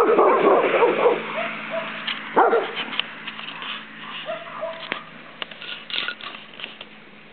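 Dog barking and yipping in play: a loud burst of barks at the start, another bark about two and a half seconds in, then fainter yips and small clicks.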